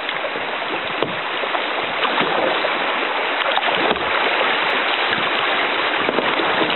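Rushing water of a shallow river riffle around a kayak as it runs through, a steady loud wash that grows slightly louder.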